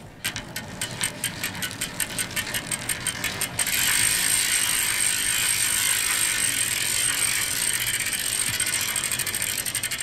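Bicycle freewheel ratchet ticking as the wheel spins: fast, evenly spaced clicks that quicken and, about three and a half seconds in, merge into a steady, louder buzz.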